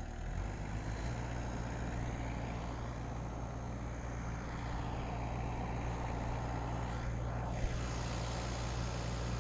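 Vermeer mini skid steer's engine running steadily, a constant low hum, while the machine holds a pull line under light tension.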